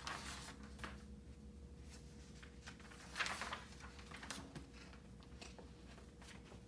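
Faint rustling and a few small clicks, one louder rustle about three seconds in, over a low steady hum.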